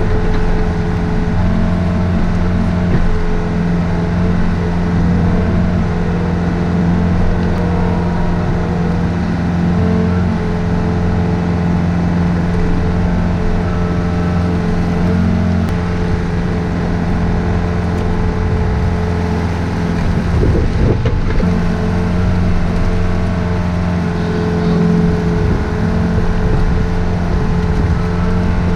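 Diesel engine of a compact excavator running steadily at a constant pitch, with a brief uneven patch about twenty seconds in.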